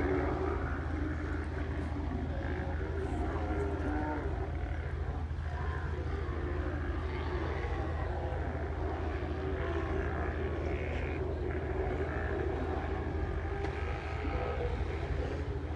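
A colony of Steller sea lions roaring and growling, many overlapping calls, over the steady low hum of a boat engine.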